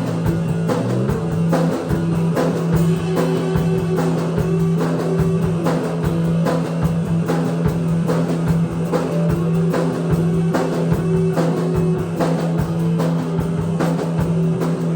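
Live rock trio playing an instrumental passage: electric guitar and bass over a steady drum-kit beat, with a low note held throughout.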